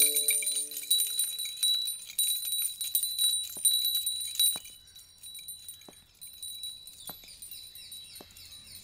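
Many small hanging metal bells jingling and tinkling together with a sustained high ring, fading away about halfway through; the tail of a music cue dies out in the first second.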